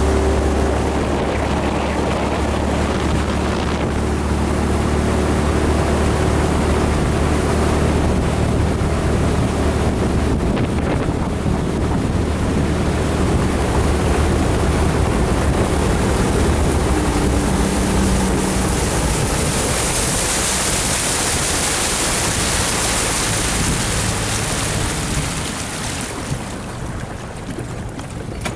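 A boat engine running steadily under heavy wind buffeting on the microphone. The engine's low hum is strongest in the first ten seconds or so, and a brighter hiss of wind or water swells for a few seconds later on before the sound eases near the end.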